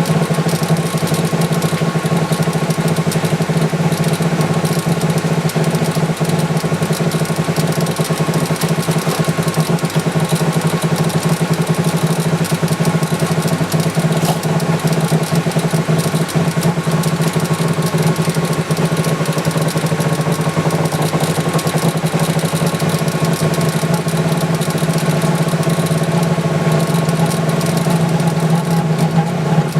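Subsurface (in-glass) laser engraving machine running: a steady mechanical hum with a fast buzzing texture and a faint constant whine.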